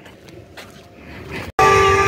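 Faint background noise, then background music cuts in abruptly about a second and a half in, with steady held tones under a wavering melody.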